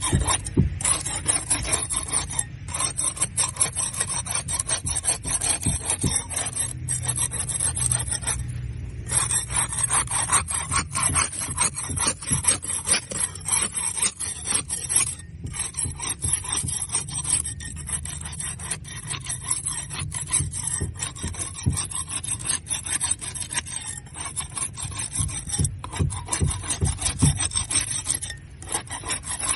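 Barnacles being scraped off a boat hull: rapid, continuous rasping scrapes, broken by a few brief pauses.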